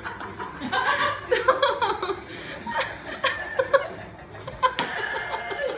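Someone laughing in repeated broken bursts.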